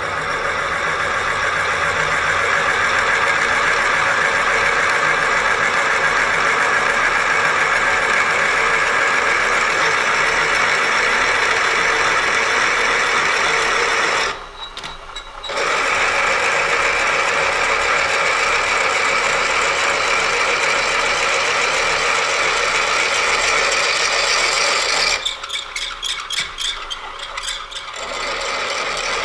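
Milling machine spindle turning a 51/64 in twist drill that cuts steadily down into a cast iron crosshead: a constant machine whine over a cutting hiss. The sound drops away briefly about halfway through and again for a few seconds near the end.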